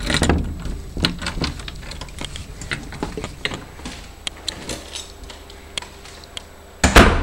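Irregular light clicks and knocks from handling a moving handheld camera, with a loud bump at the start and a louder one just before the end.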